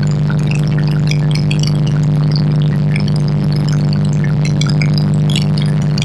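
Small single-engine airplane's engine and propeller running steadily in flight, heard from inside the cockpit as an even, unchanging hum.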